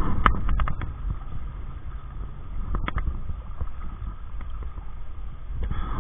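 Steady rushing of stream water with wind rumbling on the microphone, and a few sharp clicks and knocks from handling, about a second apart near the start and once about three seconds in.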